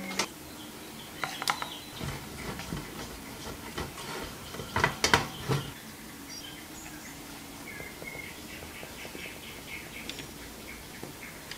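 Kitchen handling sounds with a stainless steel bowl: a metal clink as a tart ring is set in the bowl, then a silicone spatula stirring thick chocolate-hazelnut glaze against the bowl, with a cluster of louder scrapes and knocks about five seconds in. Softer wet, sticky sounds follow as the glaze is stirred and poured.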